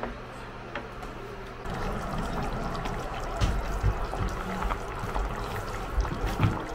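Pot of kimchi nabe bubbling and popping on an induction cooktop, with irregular low plops from the boiling broth starting about two seconds in. Before that there is only a steady low hum.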